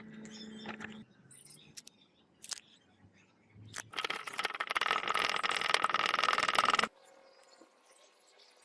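A power tool running for about three seconds, then stopping abruptly, with a few sharp clicks before it starts.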